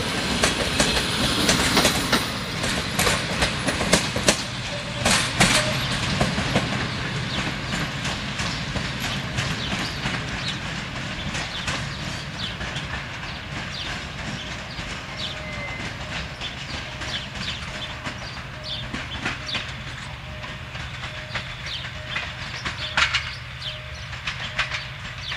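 Passenger train's wheels clattering over rail joints and points as it pulls away, the clatter fading steadily. A faint short tone repeats evenly in the last third.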